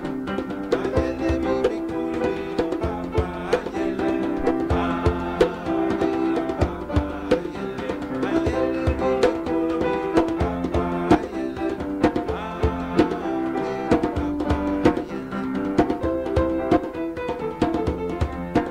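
Piano and djembe playing a traditional Ghanaian song: held piano notes over a steady rhythm of hand-drum strokes.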